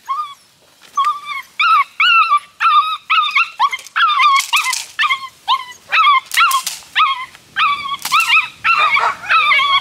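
Eight-week-old Dutch Shepherd puppy whining and yipping in quick, repeated high-pitched cries, about two a second, while held back on the leash from a bite rag: eager, frustrated prey-drive whining.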